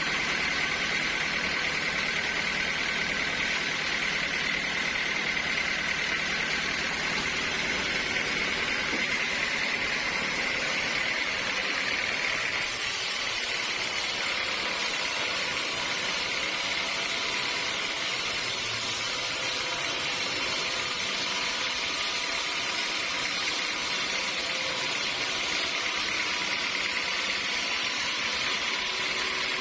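Sawmill machinery running steadily, a continuous motor sound with a steady whine over hiss; the sound shifts a little about a third of the way through.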